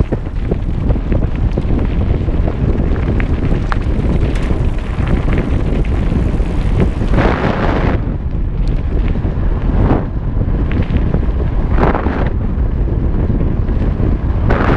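Wind buffeting the microphone of a camera on a moving mountain bike, a loud, steady low rumble with a few brief louder gusts.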